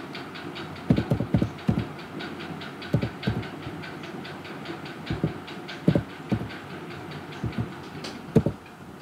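Computer keyboard keys being pressed one at a time in uneven bursts as a 12-digit number is typed, about a dozen keystrokes, over a steady background hum.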